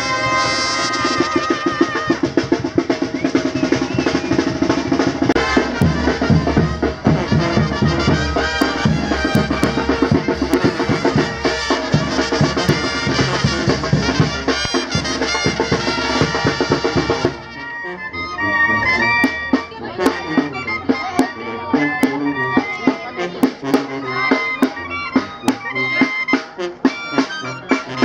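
Live brass band music with sousaphones and drum, loud and dense. About 17 seconds in it drops to a sparser passage over a steady drum beat.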